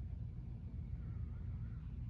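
Harbor Breeze Notus 52-inch ceiling fan turning, a steady low whoosh and hum of the blades moving air.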